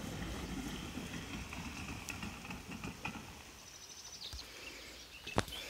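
Small motorboat's outboard motor running some way off on the river. It is a low rumble that fades away about halfway through, with faint birdsong and one sharp click near the end.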